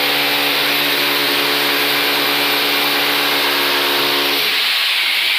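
A running machine: a steady whir with a loud hiss, and a humming tone under it that stops about four and a half seconds in while the hiss runs on.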